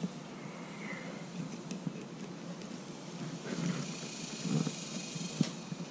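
Fillet knife cutting into a gafftopsail catfish on a plastic cooler lid: soft scraping with a few small knocks, mostly in the second half, over a steady hiss.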